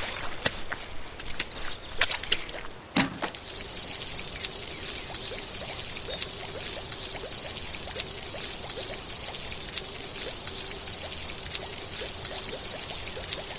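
A few seconds of sharp clicks and taps, then a steady stream of water pouring and trickling from about three and a half seconds in.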